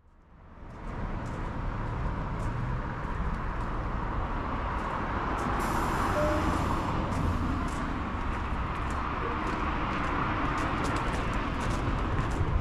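Road traffic going by: a steady hiss of tyres and engines that fades in over the first second and swells a little around the middle, with faint light ticks over it.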